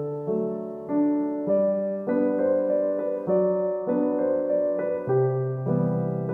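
Background solo piano music, with notes and chords struck about every half second, each ringing on into the next.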